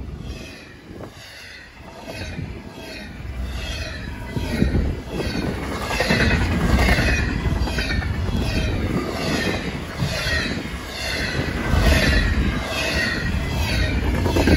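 Double-stack intermodal container train passing at speed: steel wheels on the rail clattering in a steady rhythm over a low rumble, growing louder about four seconds in.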